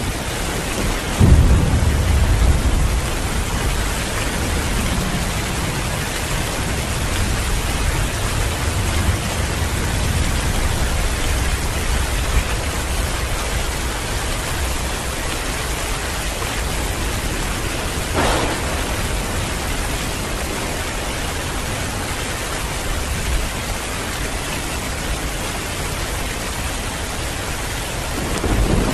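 Heavy rain pouring steadily, with a thunderclap about a second in that rumbles on for several seconds. A brief sharp crack comes about two-thirds of the way through, and another low rumble of thunder starts near the end.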